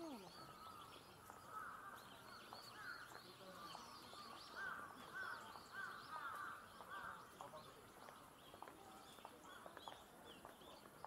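A bird calling faintly in a quick series of short, repeated calls, busiest in the middle few seconds, over faint outdoor background noise.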